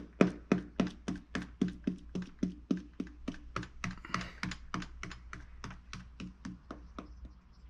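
Stiff dish-brush bristles jabbed repeatedly into soft J-Mac sculpting clay to stipple a rock texture: an even run of dull taps, about four a second, getting fainter toward the end.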